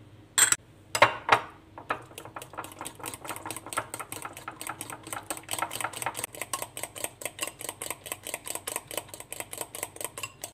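A metal fork beating egg yolk and mashed peach in a ceramic bowl, clinking against the bowl in a fast, even rhythm of about five strokes a second. A few sharp knocks come first.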